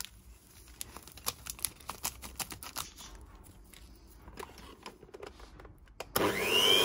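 Scattered light clicks, then near the end an electric hand mixer switches on in cake batter, its motor whine rising quickly as it spins up to speed.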